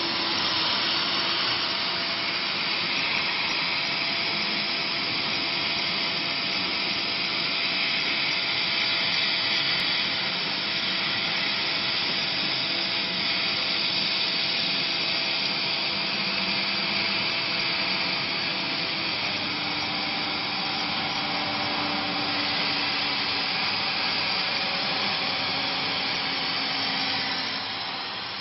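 100 W CO2 laser cutting machine at work cutting an ABS sheet: a steady hiss of air and fans, with faint humming tones that shift in pitch now and then as the cutting head moves.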